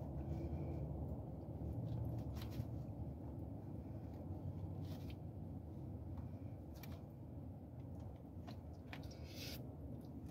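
A person eating: a few small clicks and smacks, from a plastic fork in a plastic takeout tray and from chewing, over a steady low rumble.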